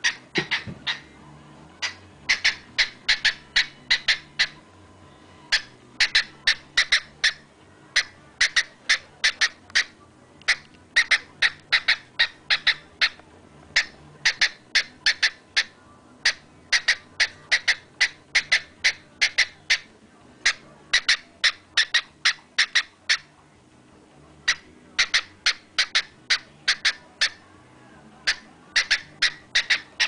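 Cockatiel making rapid runs of short, sharp clicks, about five a second, in bursts of one to three seconds with short pauses between.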